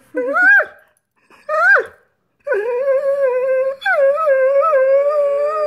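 Greyhound whining and yowling in frustration at dinner not yet being served: two short whines that rise and fall, then two long, drawn-out wavering calls.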